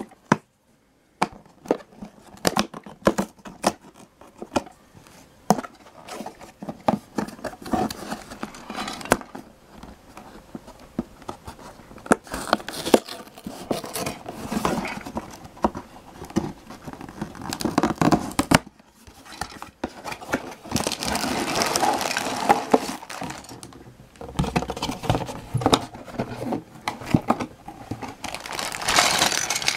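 A cardboard toy box being handled and opened, with many short clicks, taps and scrapes of the flaps, then plastic bags of toy parts crinkling steadily as they are pulled out and handled, from about twenty seconds in.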